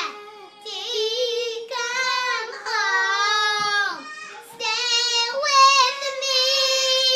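A young girl singing a song in long held notes, phrase after phrase with brief pauses between.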